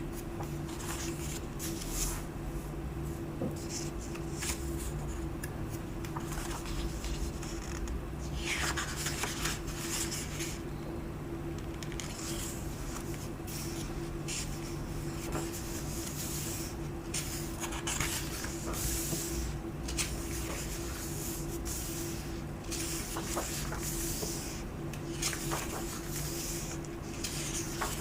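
Pages of a book being turned one after another: repeated short paper rustles and swishes at irregular intervals, over a steady low hum.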